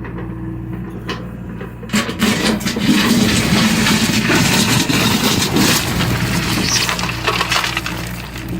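John Deere excavator's engine running steadily. From about two seconds in, a loud stretch of many sharp knocks and scraping noise lasts about five seconds, like material being broken or dug by the machine.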